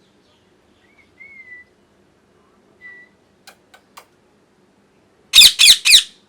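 Ringneck parrot giving a couple of soft whistles and a few clicks, then three loud, harsh screeches in quick succession near the end.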